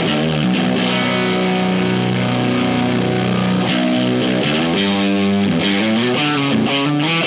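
Distorted electric guitar in a low tuning, played through a Wyong Rd Electronics Keris overdrive/fuzz pedal with its internal gain trimpot turned to full. Sustained low chords and notes ring steadily, and the notes change more often after about four seconds.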